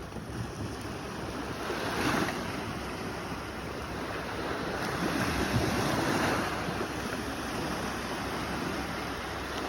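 Sea waves washing in, a steady surf noise that swells about two seconds in and again from about five to six and a half seconds.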